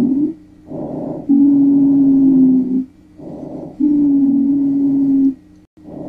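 Expiratory wheeze in recorded lung sounds. A short, quieter breath in is followed by a longer, louder breath out that carries a steady low musical tone, twice over. The tone dips slightly in pitch at the end of each breath out. The wheeze on breathing out is the sign of narrowed lower airways.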